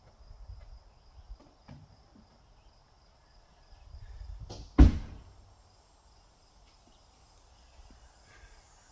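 Steady high buzz of insects, with a short rush of noise and then one loud bang about five seconds in.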